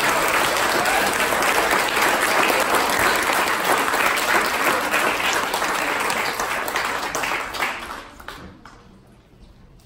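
Audience applauding: dense clapping that dies away about eight seconds in.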